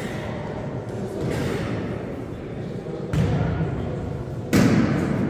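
Two thuds of a volleyball being played in a sports hall, about a second and a half apart, the second louder, each trailing a hall echo, over background chatter.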